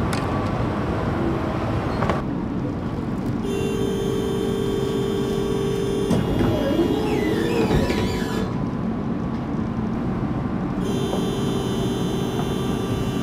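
Tatra T3 tram standing at a stop with its doors open: a steady low rumble, with a high electrical whine that comes on a few seconds in, stops about halfway through and starts again near the end.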